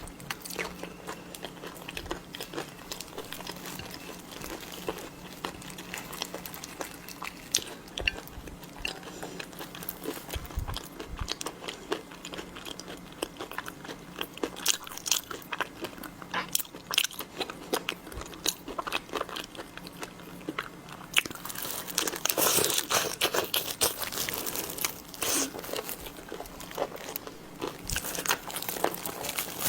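A person eating seafood close to the microphone: crunchy bites and chewing, with a denser, louder stretch of crunching about 22 seconds in.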